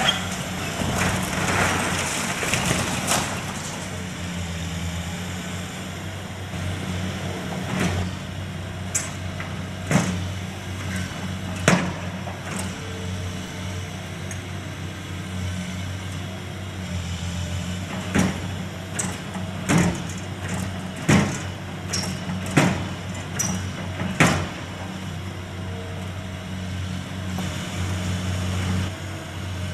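Heavy demolition machinery running with a steady diesel engine drone. Over the middle of the stretch, about a dozen sharp knocks and clanks of debris being struck and broken ring out.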